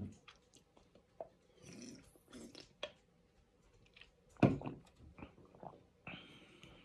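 A pet dog making small noises as it is petted, with one louder short sound about four and a half seconds in, amid soft clicks and rustles.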